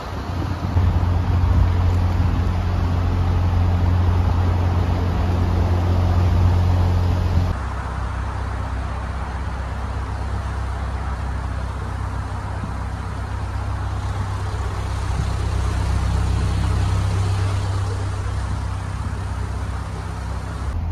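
Narrowboat engine running steadily at low revs. About seven and a half seconds in the sound drops abruptly in level and changes character, then the engine runs on.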